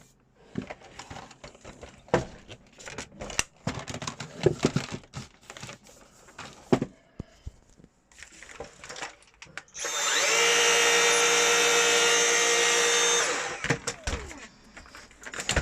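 Dyson V7 Animal cordless stick vacuum being put together, with plastic clicks and knocks, then its motor switched on about ten seconds in: a loud, steady high whine for about three seconds that spins up quickly and winds down when switched off.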